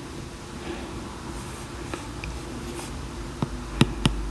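Handwriting on an iPad touchscreen: faint scratching with a few light taps, the sharpest ones in the last second or so.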